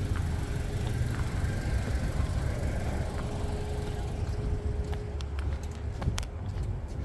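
Low rumble of a car heard from inside the cabin as it pulls slowly into a parking space, with several sharp clicks in the last two seconds.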